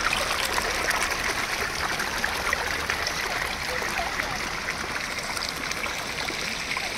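Small snowmelt mountain stream running over rocks: a steady rush of water.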